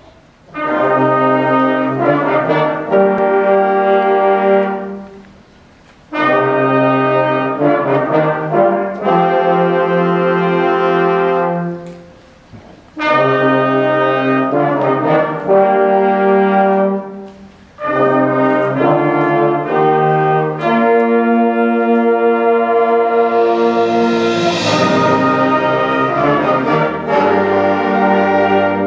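School concert band playing sustained, brass-heavy chords in four phrases, each phrase ending in a short pause before the next begins. A shimmering swell builds late in the final phrase.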